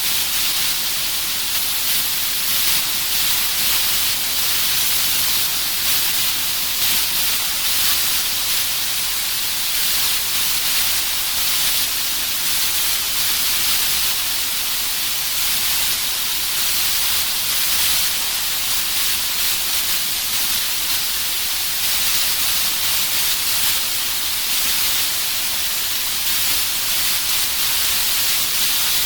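Analog TV static: a steady hiss of white noise, brightest in the treble, with a slight flicker in level.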